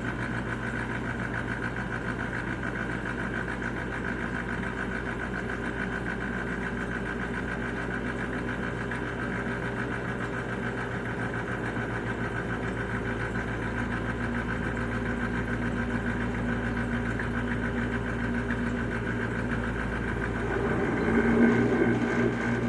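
Dishwasher running: a steady motor hum with several steady tones. About twenty seconds in it grows louder and rougher, with a churning quality.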